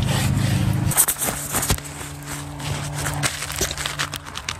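Handling noise: clicks, scrapes and rustling as gloved hands and the camera move about under the truck. A steady low hum is there at the start and cuts off about a second in.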